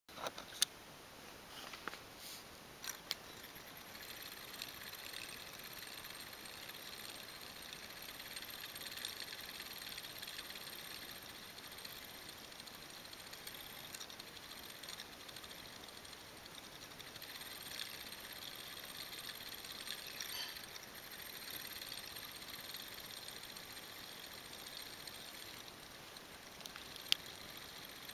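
Homemade simple DC motor, its wire coil spinning on its supports over the magnet with a faint, steady whirring rattle. A few sharp clicks come in the first three seconds and one more near the end.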